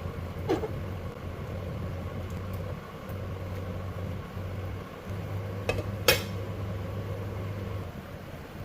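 A few clinks of kitchenware, dishes and utensils knocking together: one about half a second in and two close together about six seconds in, the second the loudest. A steady low hum runs underneath.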